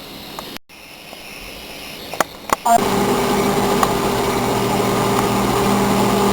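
Microwave oven being started: two sharp clicks, then the oven switches on and runs with a steady electrical hum.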